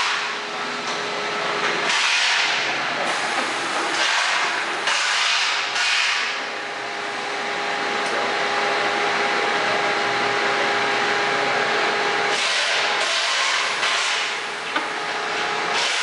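Miller-Leaman Turbo-Disc six-pod disc filter backflushing: hissing rushes of water and air come and go every second or two as the pods switch through the cycle, over a steady hum.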